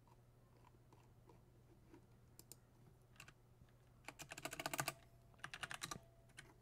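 Typing on a keyboard: a few scattered keystrokes, then two quick runs of keystrokes about four and five and a half seconds in. A faint steady low hum runs underneath.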